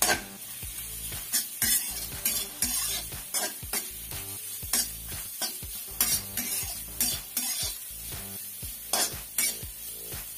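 A steel spatula scrapes and stirs grated coconut around a metal kadai as it dry-roasts, in repeated irregular strokes about once a second. Soft background music plays underneath.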